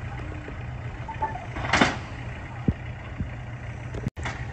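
An engine idling steadily with a low hum, with a short noisy burst a little under two seconds in and a couple of faint knocks after it.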